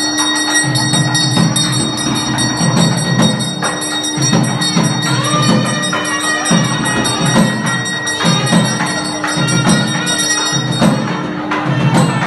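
Hindu temple ritual music during the aarti: steady drum beats and rapid, continuous jingling of bells over a held drone tone, with a faint melody line partway through.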